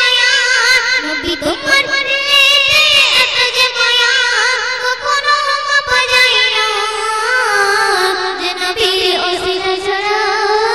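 A young girl singing a Bengali Islamic devotional song (gojol) through a microphone. She draws out long held notes with wavering, melismatic ornaments and no pauses for words.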